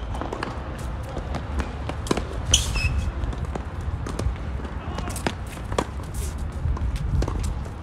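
Tennis rally on a hard court: sharp pops of racket strings hitting the ball and the ball bouncing, traded back and forth every second or so, with shuffling footsteps. A short high squeak comes about two and a half seconds in, over a steady low rumble.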